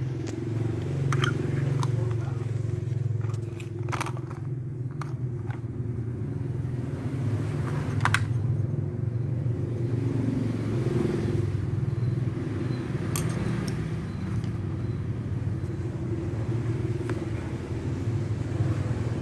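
Heter 400A welding machine running with a steady low hum, with scattered sharp clicks and crackles over it.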